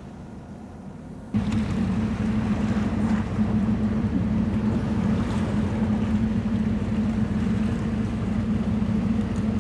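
Steady low hum and rushing noise of a cruise ship's machinery on an open deck. It cuts in suddenly about a second in and then holds unchanged.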